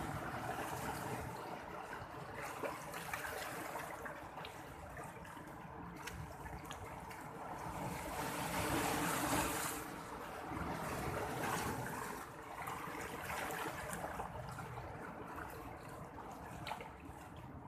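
Sea water washing and swirling in continuous waves, swelling and falling, with the largest surge about eight to ten seconds in.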